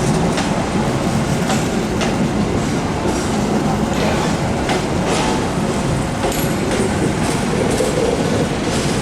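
Train rolling along the tracks at close range: a steady rumble with wheels clicking over rail joints now and then.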